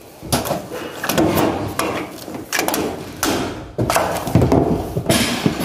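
Irregular knocks and scrapes of tile-laying work, with tools and tiles being handled on the floor.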